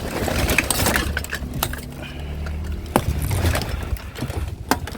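Scrap being rummaged through by hand: irregular clatters and knocks of plastic and metal junk being shifted, with a sharp knock about three seconds in.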